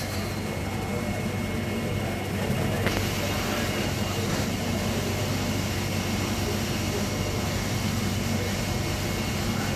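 A steady, low machine hum, a motor or engine running without change.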